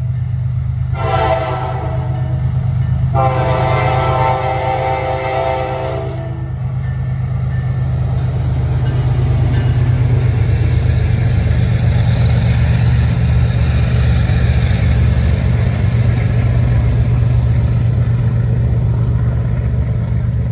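Wabtec ES30ACi diesel locomotives running together on test: the horn sounds the end of one blast, a short blast about a second in and a longer blast from about three to six seconds in. Under and after it is a loud, steady low engine drone with rail noise as the units pass close by.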